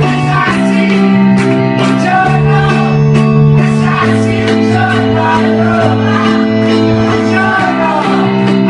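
Live music: a man singing into a microphone over instrumental accompaniment, with sustained low chords changing every second or two.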